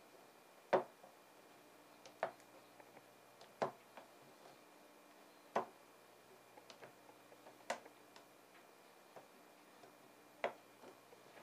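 Six sharp clicks, irregularly spaced a second and a half to three seconds apart, as small rubber bungs are pulled one by one from the filling holes of a continuous ink supply system's plastic ink tanks.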